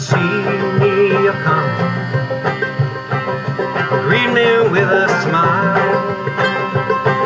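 Acoustic string band playing a bluegrass-style tune: banjo, mandolin and acoustic guitar with accordion and a cajon keeping the beat.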